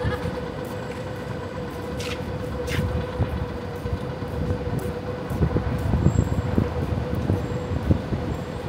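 An electric train running, with a steady hum over a low rumble and two sharp clicks about two seconds in.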